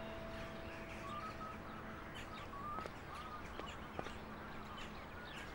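Birds chirping and calling in short high notes over a light outdoor hiss, with a few faint sharp ticks. Soft held music tones fade out in the first second or two.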